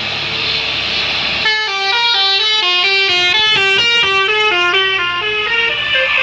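Bus telolet horn, a multi-trumpet musical horn, playing a quick stepping melody in several tones at once. It starts about a second and a half in, over a steady hiss, and stops just before the end.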